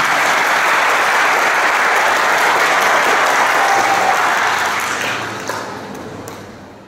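Congregation applauding, a dense steady clapping that fades away over the last two seconds or so.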